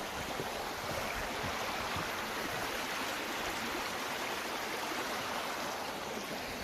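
A small stream rushing and splashing steadily over rocks beneath a footbridge.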